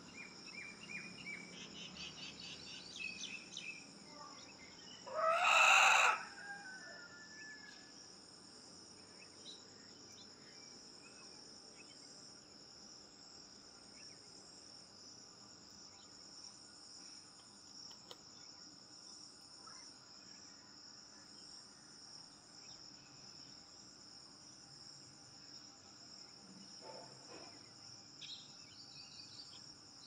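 A rooster crows once about five seconds in, the loudest sound here, over a steady high-pitched drone of insects. Small birds chirp now and then.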